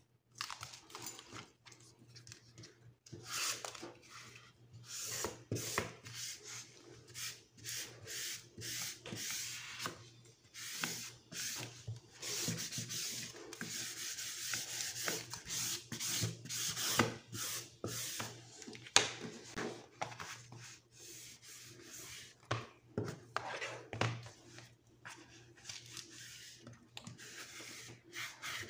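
Paper being rubbed and smoothed flat as the endpaper is pressed down onto a planner cover: quick irregular scraping strokes, with a few sharp clicks.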